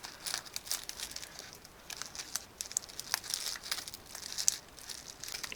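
Plastic squishy packaging crinkling as it is handled and worked open, in a string of small irregular crackles.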